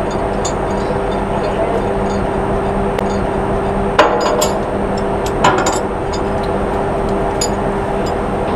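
Steady drone and hum of shipboard machinery with a constant rushing noise on deck. Two sharp metal clanks come about four and five and a half seconds in.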